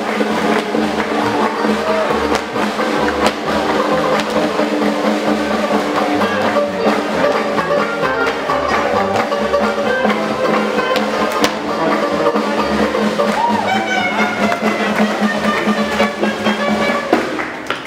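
Live small swing band playing dance music: upright bass, drum kit, banjo, clarinet and trombone, with the drums keeping a steady beat under the melody.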